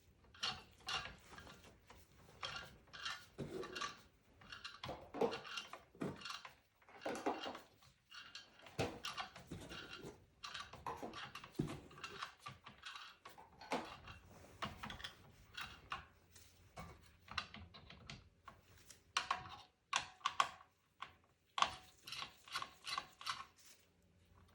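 Clicks, rattles and short scrapes of a screwdriver loosening the screws of a desktop PC's CPU heatsink and of the heatsink and fan cable being worked loose inside the metal case, with quick runs of clicks near the end.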